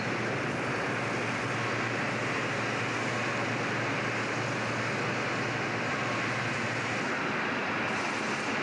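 Steady din of machinery in a locomotive repair shop, a constant rushing noise with a low hum underneath that drops away about seven seconds in.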